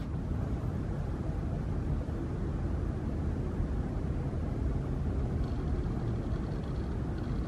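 Steady low rumble of a moving vehicle, with a faint high tone joining about five and a half seconds in.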